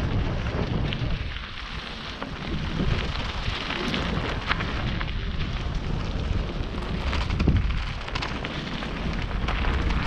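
Wind buffeting the microphone of a rider-mounted camera on a fast mountain-bike descent, with the crunch and crackle of tyres rolling over a loose gravel trail.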